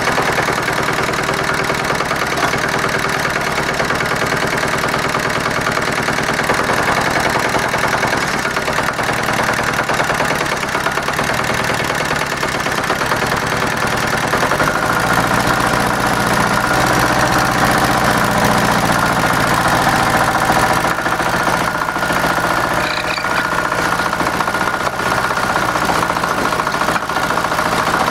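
Small single-cylinder engine of a homemade 4x4 tractor running steadily as the tractor creeps forward, its note shifting about halfway through.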